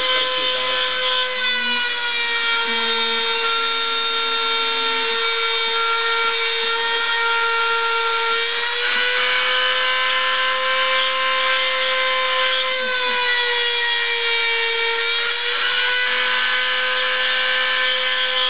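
High-speed rotary-tool spindle of a homemade CNC router running at about 30,000 rpm with a steady high whine, milling a groove in 3 mm plywood; its pitch sags slightly and recovers a few times as the cutting load changes. A fainter lower hum comes and goes in stretches of a few seconds.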